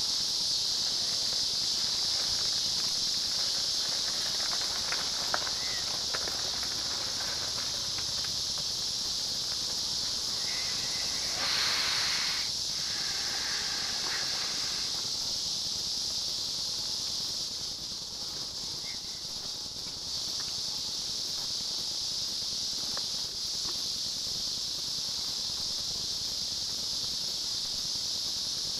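Steady high-pitched chorus of insects, a continuous shrill hiss, with a short rush of noise about twelve seconds in.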